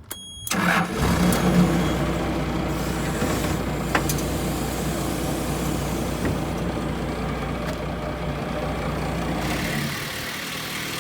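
Car lift lowering a car: a steady machine hum with hiss, starting about half a second in, the hum stopping near the end.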